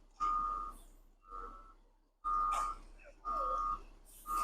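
Reversing alarm of a concrete mixer truck: steady, high single-tone beeps, each about half a second long, repeating about once a second as the truck backs in to the slab forms.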